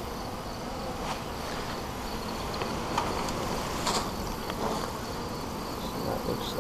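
Honey bees humming steadily around an open hive, with a few faint knocks as a wooden frame is pried loose with a hive tool and lifted out.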